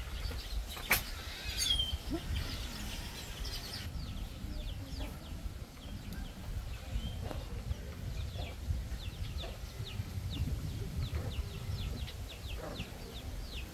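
A small bird chirping in a quick run of short high notes, several a second, over a steady low rumble, with a single click about a second in.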